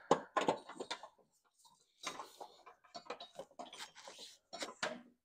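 Handling noise as a mower deck's old rubber V-belt is worked off the deck pulleys by hand: scattered light clicks, taps and rubbing scrapes.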